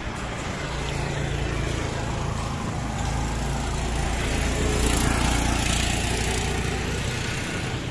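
Road traffic: the small engines of motorcycles and auto-rickshaws running steadily, with a low hum that grows louder as one passes close about five seconds in.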